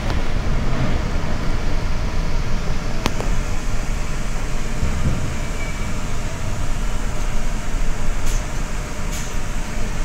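Steady low rumble of a coach bus's engine and cabin, heard from inside as the bus rolls slowly, with a single sharp knock about three seconds in.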